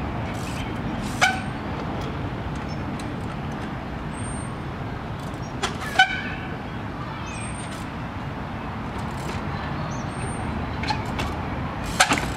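A trials bike hopping on a wooden cable spool: a few sharp knocks with a brief ring as the wheels land, the loudest about six seconds in, over a steady rumble of city traffic.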